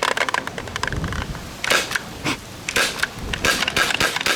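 Paintball marker firing a string of shots, roughly two a second, unevenly spaced. It is almost out of paint, so it is cycling and making its shot noise without really shooting balls.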